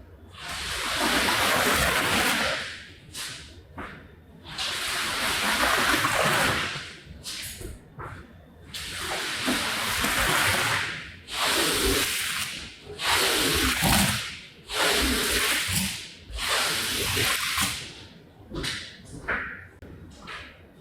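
Water spraying onto a rug in repeated hissing surges of a second or two, with short pauses between.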